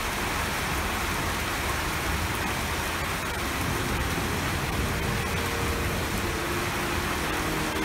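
Steady rain falling on wet concrete paving and puddles, an even hiss of drops that holds constant throughout.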